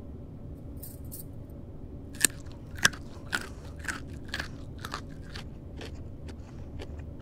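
Popcorn being eaten: crisp crunches, about two a second, starting about two seconds in, with the first two the loudest.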